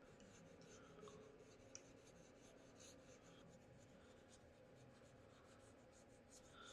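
Near silence with faint, irregular scratching: light strokes several times a second, with one slightly sharper click about two seconds in.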